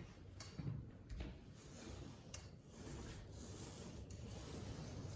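Paint roller rolling primer onto a ceiling, a faint rubbing swish in repeated strokes.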